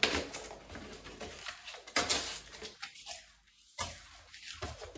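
Cardboard shipping box being cut and torn open with a small knife: irregular scraping, ripping and rustling, with sharper crackles about two seconds in and again near four seconds.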